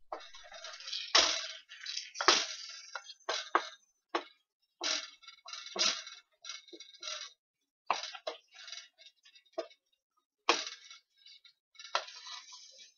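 A utensil stirring thick bread stuffing in a stainless steel saucepan, clinking and scraping against the pan in irregular strokes, about one or two a second.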